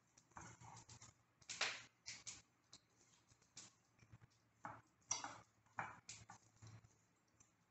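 Two metal forks tossing sliced apples in a ceramic bowl: faint, irregular clicks and scrapes of the forks against the china and the apple slices.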